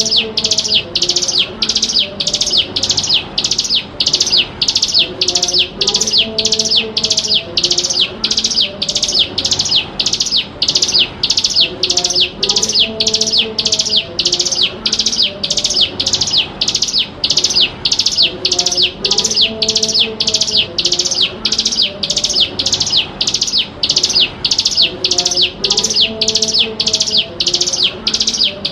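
Ciblek gunung, a small prinia, calling in a fast, unbroken series of high notes, about two a second. It is a looped lure recording used to draw wild birds and to teach young birds the call.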